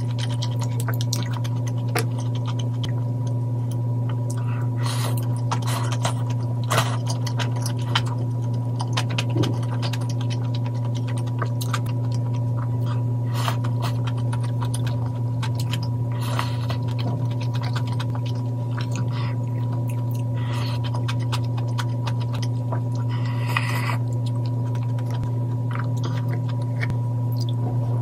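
Close-up eating sounds of mala tang noodles: chewing and slurping, with many short clicks and smacks scattered throughout. A steady low hum runs underneath.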